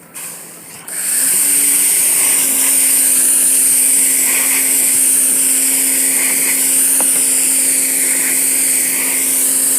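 Pressure washer spraying water at about 800 PSI onto an RV roof: a loud steady hiss with a steady pump hum under it. It starts about a second in and cuts off near the end.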